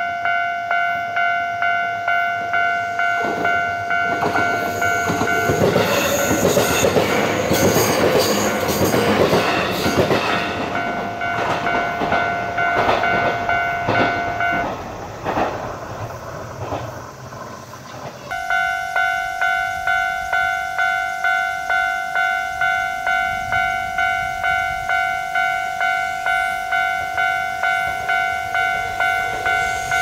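Japanese railway level-crossing alarm ringing its rapid, evenly pulsing electronic bell while a train runs over the crossing with rail-joint clatter for several seconds. About fifteen seconds in, the alarm stops once the train has cleared, then starts up again a few seconds later for the next train.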